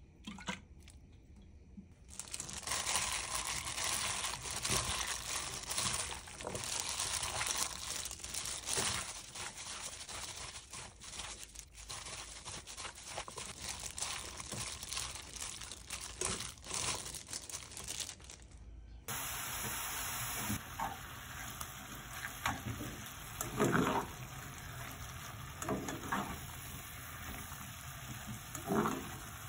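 Bare hands kneading sliced pork, onion and seasoning together in a stainless steel bowl, a busy wet mixing noise. About two thirds of the way in it changes to the pork and onions being stirred in a frying pan with a spatula, with a few louder scrapes.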